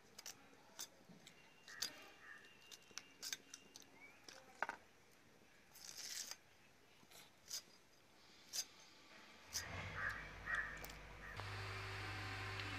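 Sharp, irregular clicks of raw green mango being sliced against a floor-mounted curved cutting blade (aruvamanai), with a few short crow caws. Near the end a steady low hum and hiss comes in.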